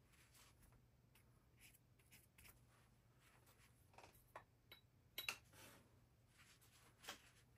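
Near silence: quiet room tone with a faint low hum and a few faint clicks and light scrapes, the loudest a little past the middle.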